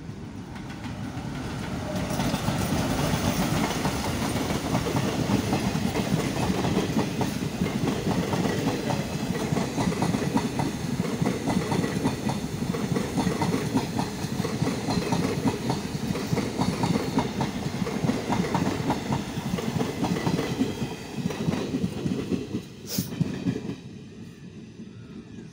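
A diesel-hauled passenger train passes at speed without stopping: the locomotive and coach wheels roll by with rapid clickety-clack over the rail joints. The sound builds over the first two seconds and stays loud while the coaches pass. It dies away about 23 seconds in, with one sharp click as the last coaches go by.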